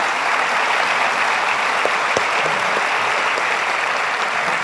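A large congregation applauding steadily.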